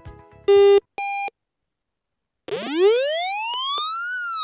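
Small speaker driven by an Arduino Uno's square-wave tone output: the tail of background music, then a short low beep and a short higher beep. After a pause a continuous electronic tone slides smoothly up in pitch, peaks near the end and starts to fall again, a siren-like sweep.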